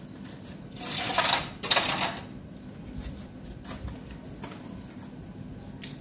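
Rattle and scrape of a long carbon fishing pole being lifted off its folding metal rest, in two short loud bursts about a second in, followed by a few faint clicks.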